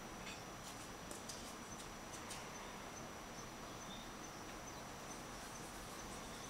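Faint clicks and crunches of pellet cat litter shifting under a kitten's paws, several in the first couple of seconds, then only a steady low hiss.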